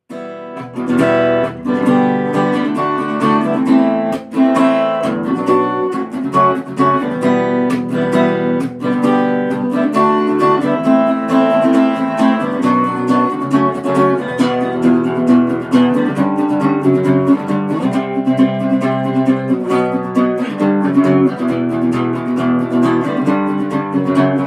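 Guitar strummed in a steady rhythm, playing the instrumental intro of the song before the vocals come in.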